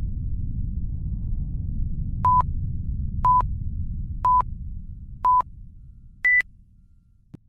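Four short electronic beeps a second apart, then a fifth, higher-pitched beep, in the manner of a countdown, over a low rumble that fades away; a single click near the end.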